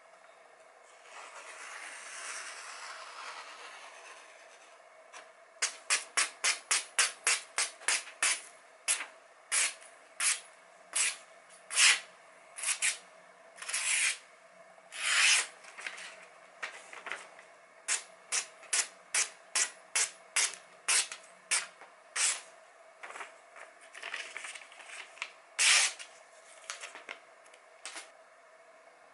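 A freshly sharpened Masamoto santoku kitchen knife slicing through a glossy magazine page as a sharpness test. One long, smooth slice comes first. Then a rapid run of short cuts follows, slowing to spaced cuts with a few longer slices, over a faint steady hum.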